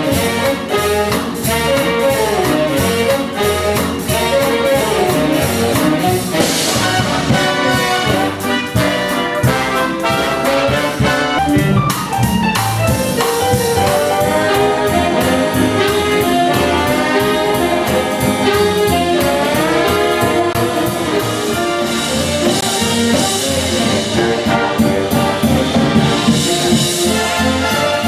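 Big band jazz: a brass section of trumpets and trombones, with saxophones, playing over a steady drum beat.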